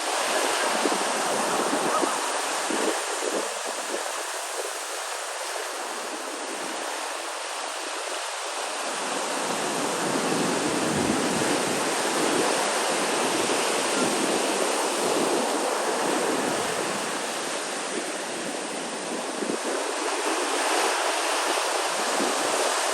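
Waves washing in on a shore, a steady rush of noise that swells and ebbs over several seconds.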